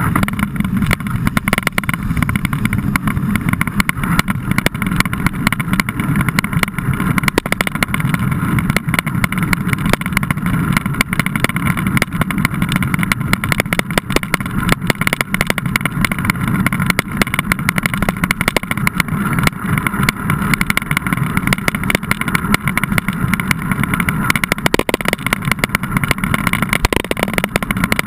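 Mountain bike riding, as picked up by a handlebar-mounted camera: a steady muffled rumble with constant rattling and knocking from the road.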